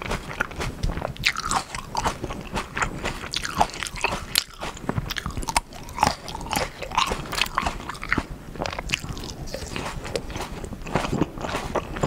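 Seedless Black Sapphire grapes eaten whole with their skins, bitten and chewed close to the microphone: a run of many short, sharp clicks from the bites and chewing.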